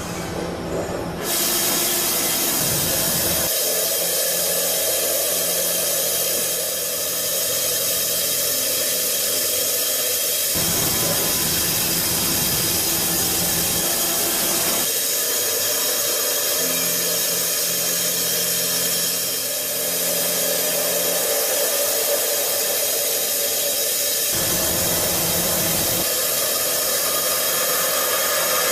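Steady, loud hiss of spray or air with a machine hum underneath; the hum changes abruptly several times.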